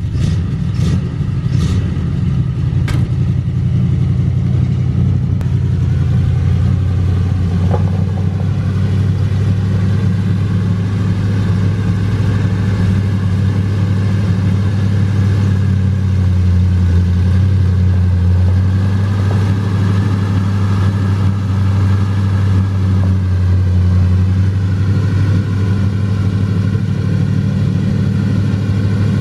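1961 Ford F250 pickup's engine idling steadily, with a few sharp clicks in the first three seconds.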